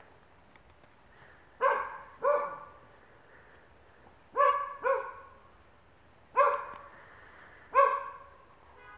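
A dog barking six times: two quick pairs, then two single barks, each bark short and loud.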